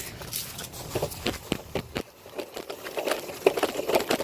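Cardboard being scratched: irregular scratchy rustles and small clicks, easing off briefly about halfway through.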